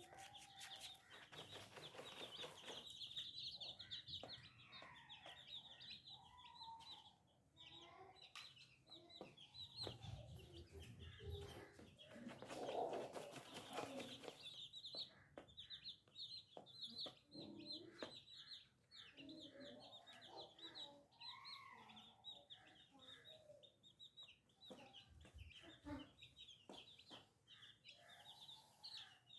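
Baby chicks peeping, a constant stream of short high chirps, with a hen clucking lower in between.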